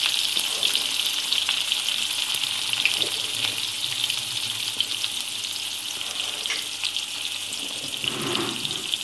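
Chopped onion frying in hot oil in an aluminium kadai: a steady sizzle with scattered small crackles, the onion cooking until it turns light brown.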